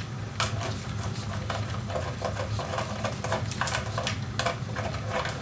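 Ratchet clicking in quick runs of short ticks as it backs out an 8mm screw on a motorcycle's countershaft sprocket cover, over a steady low hum.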